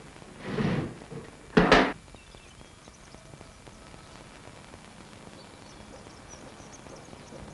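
A door shut with a sharp, loud thud just under two seconds in, after a short scraping noise; then a low, steady background with faint high chirps.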